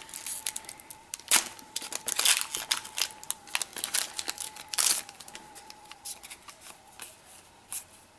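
Foil Yu-Gi-Oh booster pack wrapper being torn open and crinkled: a run of sharp crackles and rustles, loudest at about one, two and five seconds in.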